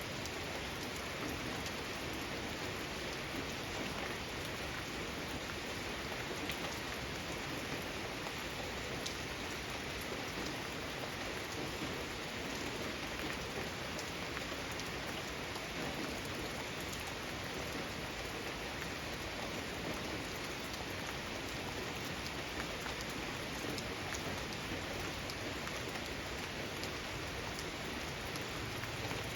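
Steady rain falling, a continuous even hiss with scattered drop ticks.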